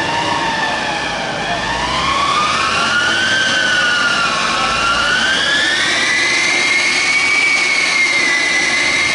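Chassis dyno rollers whining under a BMW 135i during a dyno pull. The whine climbs in pitch, dips twice and rises again as the car accelerates, loud enough to drown out the car's aftermarket exhaust.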